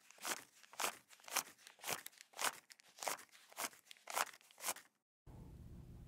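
Countdown-timer sound effect: short, sharp ticks repeating evenly about twice a second, which stop abruptly near the end.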